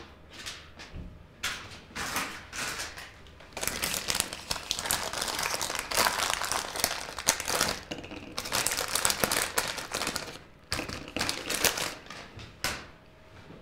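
A small clear plastic bag crinkling as it is handled and opened, with a few light clicks near the end as the small black connector boots inside are tipped out onto a cutting mat.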